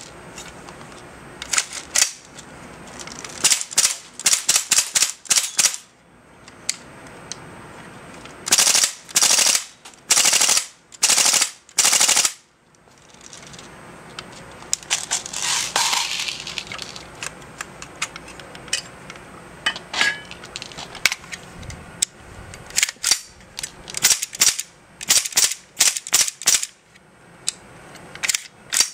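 Daytona Gun AKMS airsoft rifle, an HPA-fed gas-blowback rifle on the Escort system, firing single shots and rapid short bursts, with each shot clacking as the bolt cycles. A brief hiss comes in a quieter spell about halfway through.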